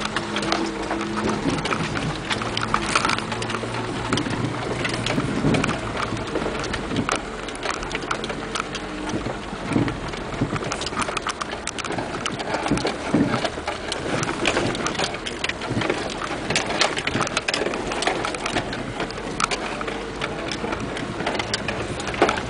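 Steady rain falling, with many sharp drop taps close by.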